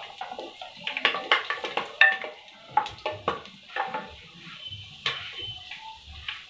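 Wooden spoon stirring whole spices frying in oil in an aluminium pot, knocking and scraping irregularly against the metal sides, over a light sizzle. The knocks come thick at first and thin out toward the end.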